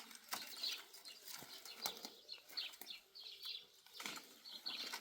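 Faint, short high chirps repeating several times a second, typical of small birds, with a few scattered knocks and taps.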